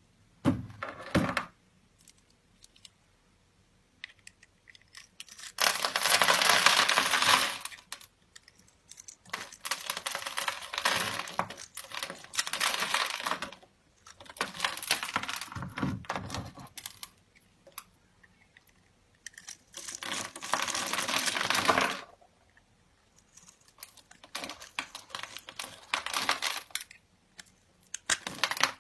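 Small hard objects clattering and rattling against each other in repeated bursts of a few seconds, with quiet gaps between them.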